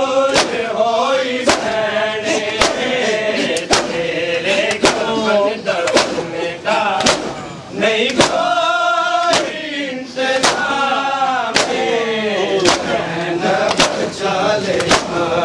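Men's voices chanting a nauha, a Shia mourning lament, over sharp strikes of matam chest-beating in unison about once a second.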